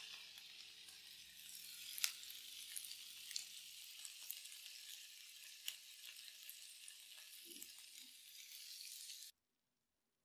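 Chicken thigh and leek yakitori skewers sizzling in a hot sandwich maker, with a few sharp crackles of spitting fat. The sizzle cuts off suddenly near the end.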